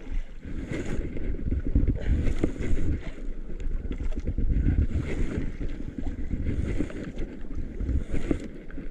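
Wind buffeting the microphone and sea water washing against an outrigger boat, with a hiss that swells about once a second.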